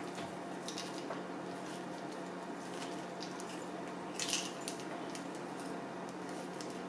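Kitchen knife cutting the eyes out of a peeled pineapple: a series of short, wet slicing strokes through the fruit flesh, the loudest about four seconds in, over a steady low hum.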